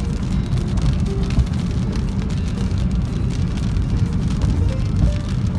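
Car driving, with a steady low road and engine rumble and faint music over it.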